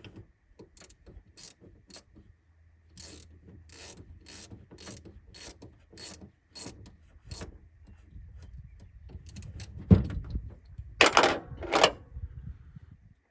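Ratcheting clicks in slow, even strokes, about two a second, then a sharp knock and two loud rasping noises near the end.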